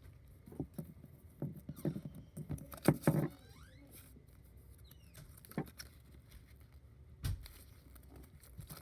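Irregular rustling, scraping and light tapping of objects being handled, loudest in a cluster about three seconds in, with a single sharper knock near the end.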